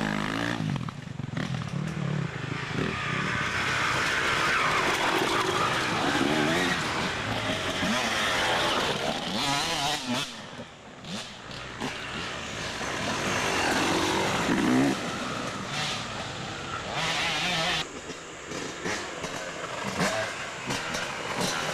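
Dirt bike engine revving up and down repeatedly while riding off-road, with a brief drop in level about ten seconds in.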